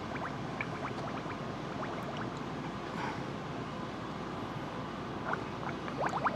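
Air bubbling and gurgling out of the return lines into the fluid-filled reservoir of a brake master cylinder as its piston is pushed in by hand during bench bleeding: the air is being purged from the cylinder. Small bubbling pops come and go over a steady hiss, with a cluster near the end.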